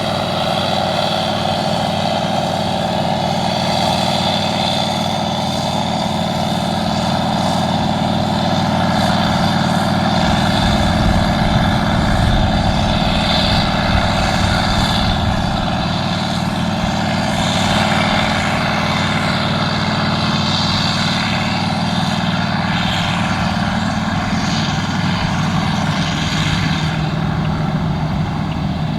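AGCO Gleaner R62 combine's air-cooled V8 diesel running steadily under load together with its threshing machinery while harvesting wheat. The sound is loud and even, with a constant engine drone.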